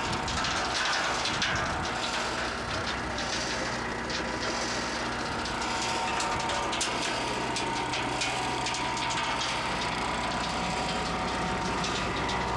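Placer gold wash plant running on gravel: a steady machine drone with a constant whine and a continual scatter of clicks and clatter from stones passing through.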